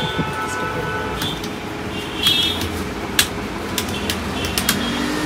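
Computer keyboard keys and mouse buttons clicking: about seven sharp, separate clicks at uneven intervals over a steady background hum.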